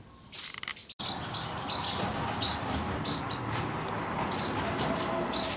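Swallows at their mud nests twittering: a run of short, high chirps repeating about twice a second, starting after a quiet first second.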